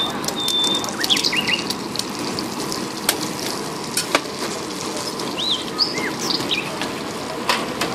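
Oil sizzling steadily on a large flat iron griddle under a frying omelette, with occasional sharp clicks and a few short high chirps.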